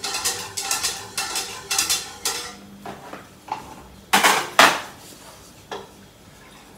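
A metal utensil scraping and clinking against a saucepan in quick strokes as white sauce is stirred to keep it from sticking to the bottom; this stops about two and a half seconds in. A few scattered clinks follow, then two loud knocks of kitchenware on the counter about four seconds in and a lighter one near the end.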